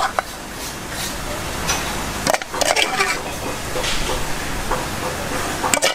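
A metal spoon scraping and clinking against a metal pot and an enamel plate as wet minced beef larb is scooped out and served, a few sharp clinks over a steady background hiss.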